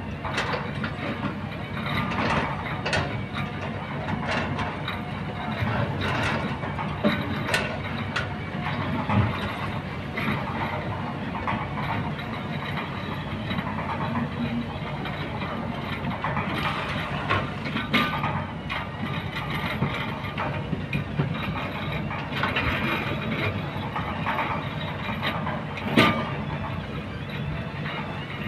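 Kobelco hydraulic excavator's diesel engine running steadily while its bucket digs through river stones, with repeated sharp knocks and clatters of rock against steel, the loudest near the end.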